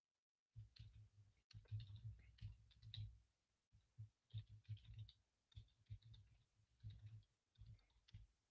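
Faint typing on a computer keyboard: irregular keystrokes in quick runs, broken by short pauses.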